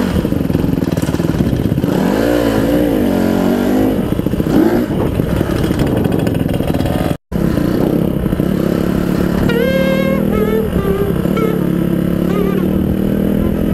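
Honda CRF150R dirt bike's four-stroke single-cylinder engine running under way, its revs rising and falling. It climbs in steps near the end, and the sound drops out for a split second about halfway through.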